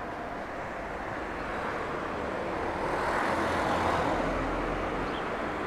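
Street traffic noise: a vehicle passing, its sound swelling to a peak about three to four seconds in and then fading.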